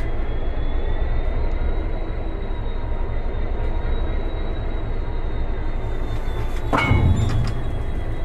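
Class 66 diesel locomotive's EMD two-stroke V12 engine running with a steady low rumble and a faint high whine. About seven seconds in there is a single sharp clank.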